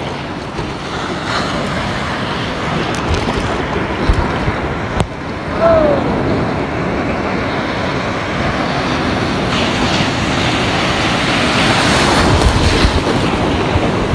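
Ocean surf: waves breaking and washing in as white water, with wind buffeting the microphone. The rush of surf grows louder in the second half as a big wave breaks and its foam runs in.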